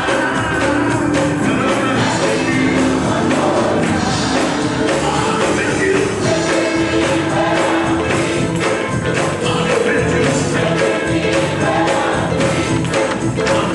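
Live church gospel music: a choir singing over instruments with a steady percussion beat.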